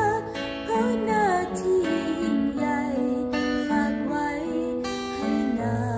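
A woman singing a Thai song, her voice gliding between notes, over a strummed acoustic guitar.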